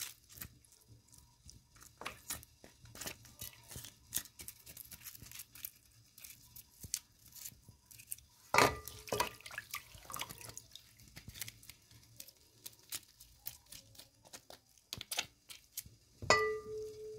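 A knife scraping scales off a hot-water-softened salted fish: quick scratchy scrapes with drips and splashes into a metal basin of water. There is a louder clatter about halfway through, and near the end the knife knocks the metal basin, which rings.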